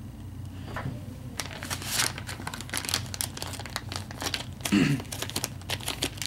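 Plastic soft-bait packet crinkling as it is handled, dense fast crackles starting about a second and a half in, with a short low sound about five seconds in.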